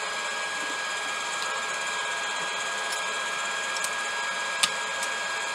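An electric fan running steadily with a constant hum-and-hiss and a thin high whine, with a faint metallic tick about four and a half seconds in.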